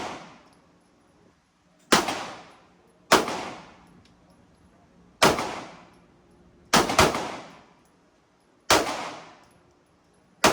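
Glock 19 9mm pistol fired seven times at uneven one-to-two-second gaps, including a quick pair about seven seconds in. Each shot leaves an echo that dies away in about a second.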